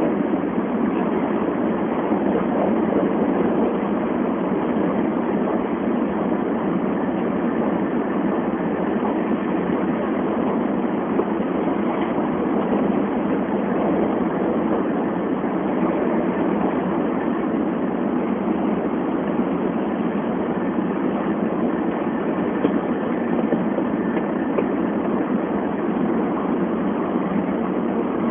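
Tokaido Shinkansen high-speed train running at speed, heard inside the passenger cabin as a steady, even rushing noise.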